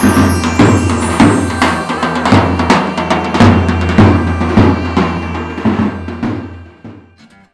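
Intro music with a steady drum beat over a deep bass line, fading out near the end.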